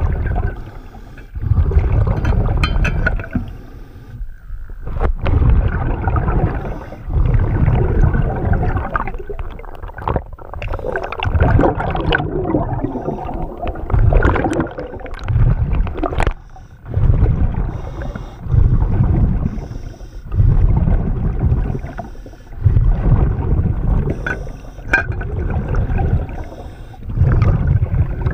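A scuba diver breathing through a regulator underwater: air hissing and exhaled bubbles rumbling in repeated surges every two seconds or so, with a few sharp clicks.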